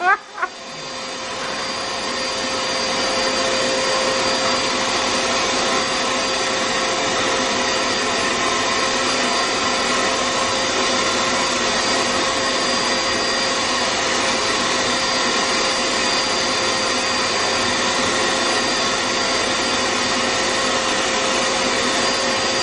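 Vacuum cleaner running steadily while its nozzle is worked over a cat's fur, with a steady whine over the rush of air. The sound grows louder over the first couple of seconds, then holds level.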